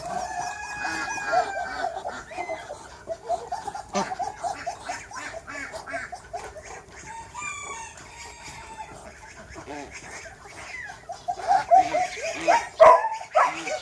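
A flock of chickens clucking continuously in short calls. A rooster's long crow trails off near the start, and the clucking gets louder and busier near the end.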